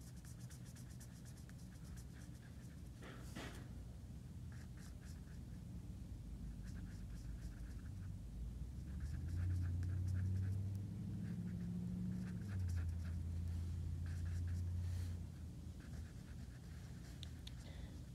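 Tip of a fine-point Sharpie marker rubbing across paper in many short strokes as small swirls are drawn. A low steady hum comes in about halfway through for several seconds, louder than the marker.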